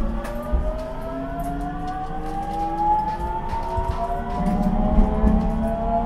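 Traction motors and GTO VVVF inverter of a JR Central 373 series electric train whining, heard on board a motor car, the tone rising slowly in pitch as the train accelerates. Under it is the low rumble of the wheels on the rail, with a few short knocks.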